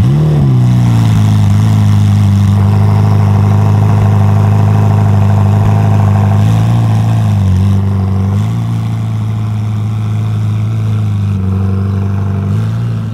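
Novitec Ferrari F8 N-Largo S's twin-turbo V8 starting with a short rev flare, then settling into a steady idle. The idle dips in pitch for about a second around the middle and picks back up.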